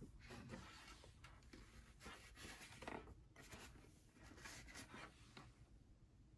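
Faint rubbing and scraping of hands on the plastic housing of a plasma eye lamp as it is picked up and turned over, dying away in the last second.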